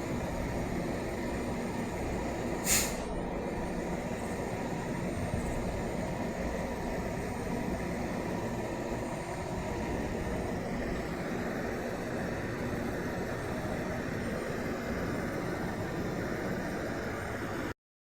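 Semi truck running with a steady diesel rumble. About three seconds in comes one short, sharp hiss of its air brakes.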